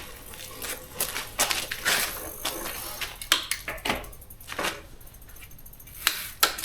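Scattered clicks and light metallic knocks as hand tools and parts are handled on a dirt bike's front wheel hub. The knocks come at irregular intervals, with a few louder ones.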